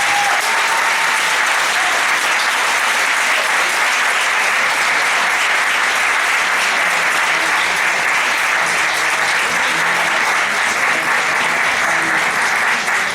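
Audience applauding steadily and loudly, a dense wash of many hands clapping that holds at the same level throughout, right after the music stops.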